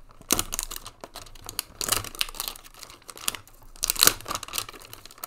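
A Panini Prizm football card retail box being torn open by hand: its packaging crinkles and tears in a run of irregular crackling rustles, loudest about two and four seconds in.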